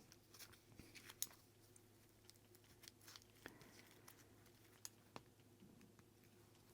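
Near silence: a few faint clicks and rustles of small parts being handled, over a low steady hum.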